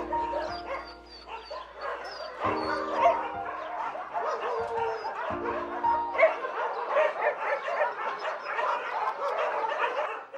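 Several dogs barking and yipping at once, in a dense overlapping jumble. Background music with held notes plays under them for the first six seconds or so, then stops.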